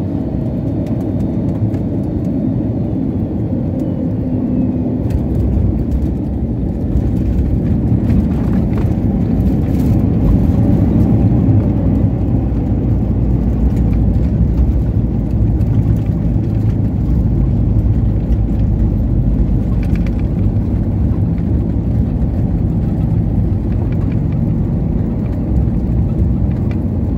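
Jet airliner cabin noise during landing: a steady rumble of engines and airflow with a faint falling whine in the first few seconds. About seven seconds in it rises to a louder, deeper rumble as the plane rolls out on the runway, then eases slowly as it slows.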